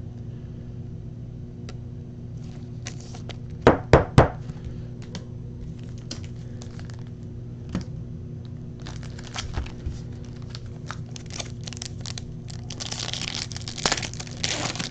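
Trading cards being handled on a table: three quick knocks about four seconds in, then light scattered clicks. Near the end a foil card-pack wrapper crinkles and tears open. A low steady hum runs underneath.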